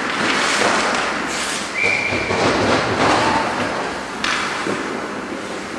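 Ice hockey game play: skates scraping the ice and sticks and puck clacking, with a sharp knock about four seconds in.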